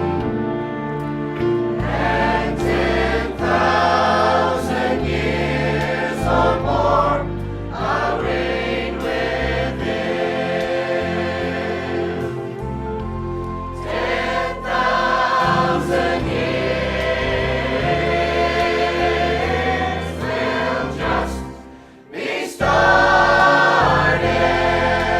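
Church choir singing a gospel hymn over instrumental accompaniment, dropping away for a moment near the end before coming back in.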